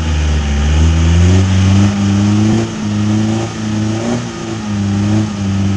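Off-road 4x4's engine revving hard. Its pitch climbs about a second in, then holds high with short, regular dips.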